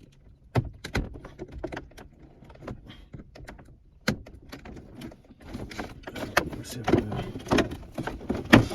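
Hard plastic clicks and knocks of a Nissan Maxima center console and its wiring harness connectors being unclipped and handled, with single sharp clicks about half a second, one second and four seconds in, then a busier clatter of plastic in the last three seconds as the piece is worked free.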